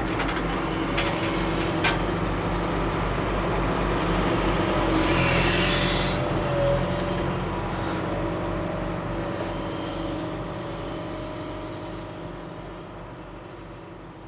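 Diesel engine of a John Deere backhoe running steadily, with a louder rushing noise about four to six seconds in, fading out over the last few seconds.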